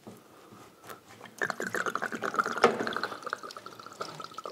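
Engine coolant gushing out of a just-disconnected radiator hose and splashing onto the car's metal floor pan. It starts suddenly about a second and a half in and then thins to a dribbling patter.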